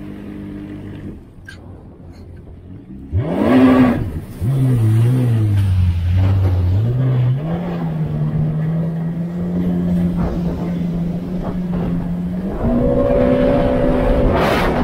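2019 Yamaha GP1800R WaveRunner's engine running under way over water. It eases off, revs up sharply about three seconds in, dips and wavers, then climbs to a steady cruising note that steps up again near the end.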